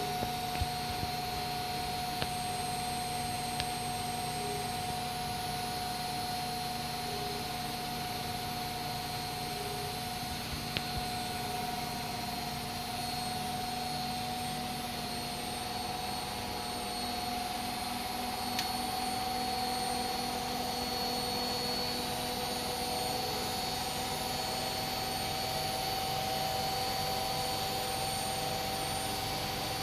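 Washing machine running with a steady whine over a hum, its pitch creeping slightly upward, with a few faint clicks in the first few seconds and one near the middle.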